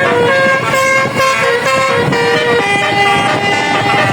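A bus's multi-tone basuri telolet horn, a 24-note "cortas" set, playing a loud melody of held horn notes that step from pitch to pitch every fraction of a second.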